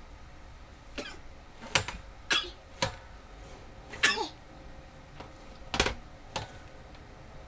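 A baby's short, sharp vocal sounds: about seven brief bursts, one around four seconds in with a falling pitch.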